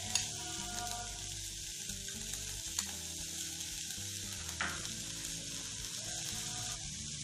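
Steady hiss from a gas stove under an aluminium cooking pot, with a couple of soft knocks as curry leaves are dropped into the pot, about three and four and a half seconds in.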